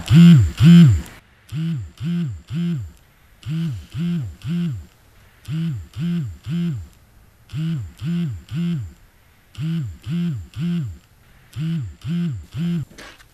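Mobile phone on a wooden shelf vibrating with an incoming call: bursts of three short low buzzes about every two seconds, each buzz rising and falling in pitch.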